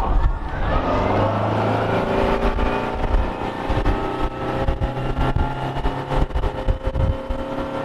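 150-horsepower four-stroke outboard motor on an aluminium V-bottom bass boat accelerating under way: its note rises over the first second or so, then holds steady at speed.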